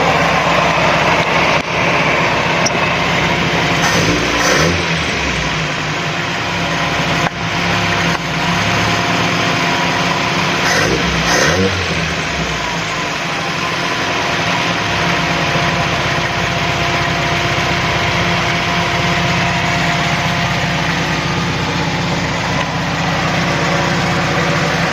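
Carbureted Toyota 4A-F four-cylinder engine running at idle and revved briefly twice, about four seconds in and again near the middle. The owner traces its hesitation on acceleration to a vacuum leak at the carburetor's secondary diaphragm and a missing choke-opener linkage.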